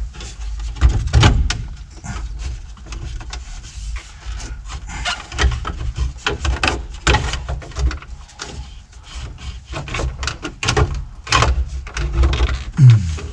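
Irregular clicks, knocks and scraping of plastic and metal parts as a stereo head unit is worked back out of a squarebody Chevy truck's dash after a tight test fit. There is a louder knock near the end.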